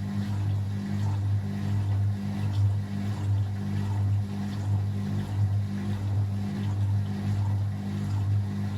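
Beko WA 1050 washing machine running: a steady low motor hum that swells and fades in an even rhythm, a little faster than once a second.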